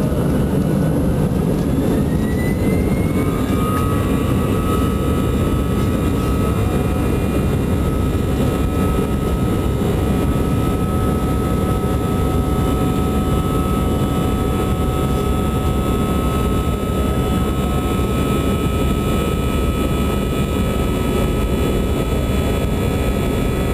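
Airbus A320's twin turbofan engines heard from inside the cabin on the takeoff roll. Their whine rises in pitch over the first few seconds as they spool up, then holds steady at takeoff thrust over a loud, steady rumble.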